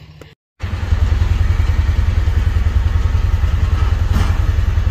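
An engine running with a loud, steady, evenly pulsing low rumble. It starts and stops abruptly, with a brief clatter about four seconds in.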